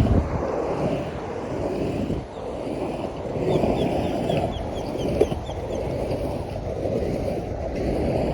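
Skateboard wheels rolling over concrete with a steady rumble, mixed with wind on the microphone. About three and a half seconds in comes a quick run of short high chirps, and just after five seconds a sharp click.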